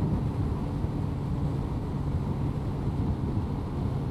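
2002 Honda CBR1100XX Blackbird's inline-four engine running at a steady cruise, with wind rush, heard from a mic inside the rider's helmet.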